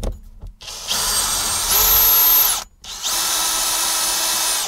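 Bosch cordless drill-driver run twice in short bursts, backing out the screws on the front of a battery kill switch. The first burst steps up to a higher, louder whine partway through; the second runs at a steady speed.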